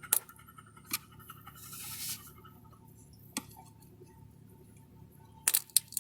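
A tool prying and scraping at the silicone seal of a boat's port window: a few sharp clicks and taps, a brief scraping hiss about two seconds in, and a quick run of clicks near the end.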